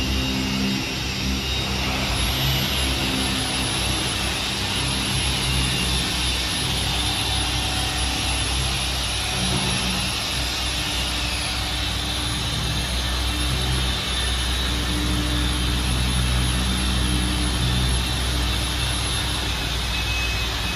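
Electric car polishing machines with foam pads running on a car's paintwork: a steady motor hum and whir, with a thin high whine through most of it.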